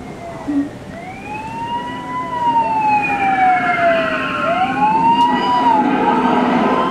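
Storm wind howling and whistling, several wavering tones sliding up and down over a steady rush of wind, growing louder about two seconds in.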